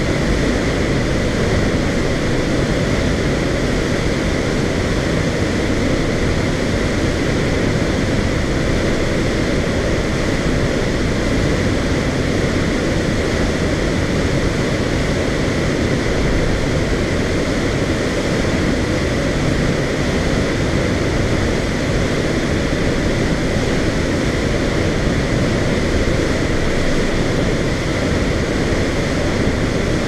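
Waterfall pouring into a rock-walled plunge pool: a steady, loud rush of water with a deep rumble underneath.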